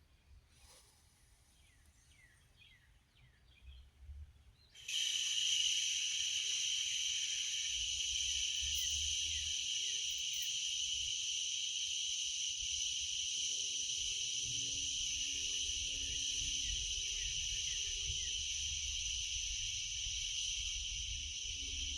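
Small birds chirping faintly, then about five seconds in a loud, steady, high insect drone starts abruptly and holds, with the birds still chirping beneath it.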